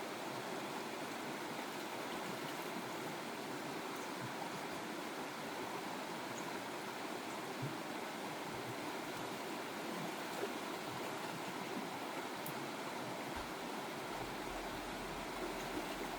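Steady rushing of flowing stream water, with a few faint ticks over it.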